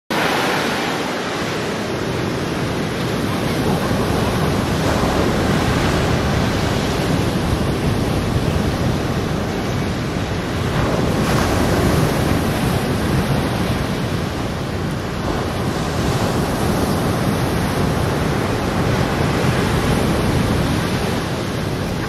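Surf breaking on a sandy beach: a steady rush of waves that swells and eases every few seconds.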